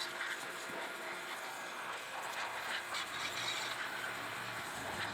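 Compressed air hissing steadily from an air nozzle, typical of air being blown into a brake caliper to free it or push the piston out.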